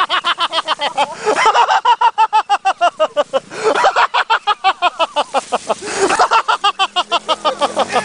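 Someone laughing hard in long runs of quick, repeated ha-ha bursts, with short breaks for breath between the runs.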